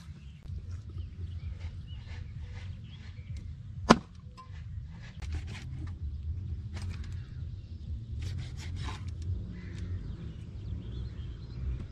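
Chinese cleaver slicing through a fish on a plastic cutting board: many light scraping and cutting sounds, with one sharp chop about four seconds in. A steady low rumble runs underneath.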